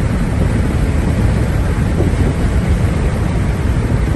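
Wind and road noise in a moving car: a loud, steady rush without pitch, heaviest in the low end.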